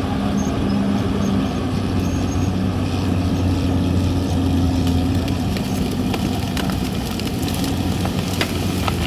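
CAT D6R XL bulldozer's diesel engine running steadily under work, with a few sharp clanks in the last few seconds.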